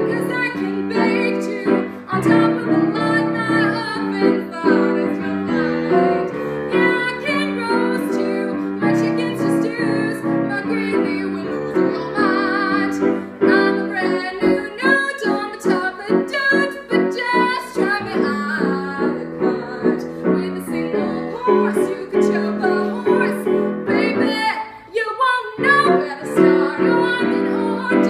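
A woman singing a musical-theatre song live, accompanied on a grand piano, with a brief pause near the end.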